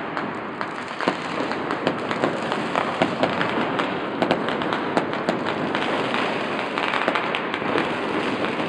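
Fireworks going off without a break: a dense crackle of many small bangs and sharp pops.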